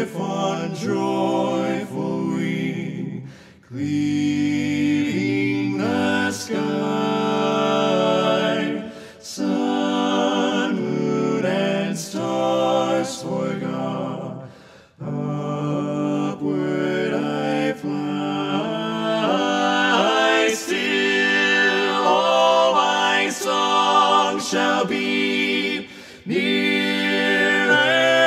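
Unaccompanied voices singing together in harmony, a cappella, in phrases broken by short pauses.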